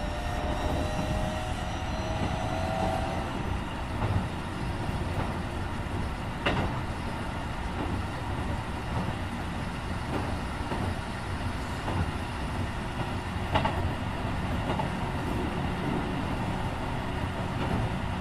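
Keikyu 1500 series electric train running, heard on board: the Mitsubishi IGBT-VVVF inverter whine rises slightly in pitch as the train accelerates, then fades about three seconds in, leaving steady rolling noise. Two sharp clicks come from the wheels and track, the first about six seconds in and the second about thirteen seconds in.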